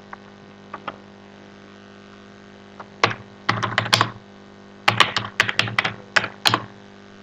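Computer keyboard typing: a few single keystrokes, a pause, then two quick runs of keystrokes as a line of code is entered, over a steady low hum.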